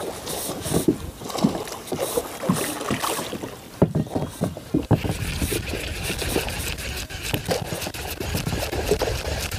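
Small waves slapping and sloshing irregularly against the hull of a plastic fishing kayak. From about halfway in, a steadier low rush of wind on the microphone joins in.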